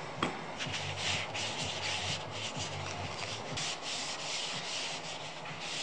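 Paper towel rubbing oil into a carved oak spoon in quick back-and-forth strokes, about three a second. A sharp click sounds about a quarter second in.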